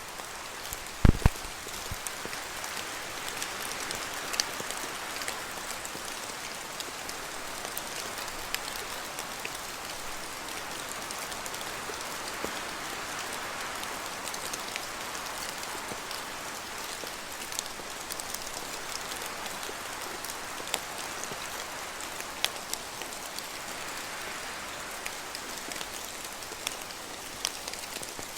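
Steady rain falling in a spruce forest, with single heavier drops from the trees ticking here and there and wind swelling through the branches now and then. Two heavy low thuds about a second in.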